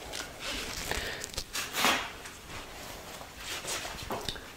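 Rustling and soft clicks of a hunting backpack's straps and hip-belt buckle being handled and adjusted while it is worn.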